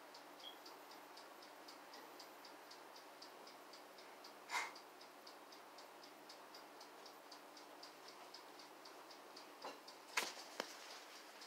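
Faint mechanical timer ticking quickly and evenly, about five ticks a second, typical of a toaster oven's wind-up timer counting down while it cooks. One sharp click about four and a half seconds in, and a couple of knocks near the end.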